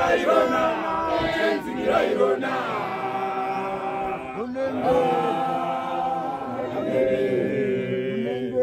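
Congregation of a Shona apostolic church singing a hymn together without instruments, many voices in harmony holding long, gliding notes.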